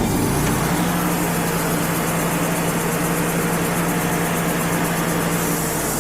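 Wood-Mizer LT35 HD portable sawmill running under its diesel engine, a steady machine noise. A steady hum joins about a second in and stops near the end.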